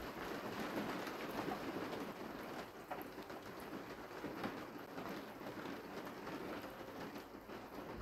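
Steady hiss of light rain, with a few faint ticks of drops.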